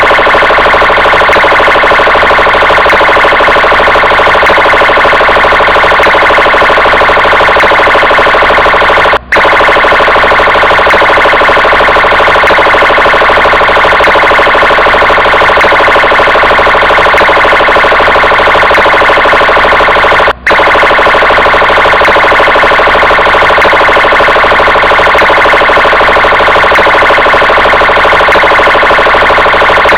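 Police car siren sounding loudly and continuously, a dense stack of pitched tones. It cuts out for a split second twice, about eleven seconds apart, where the recording loops.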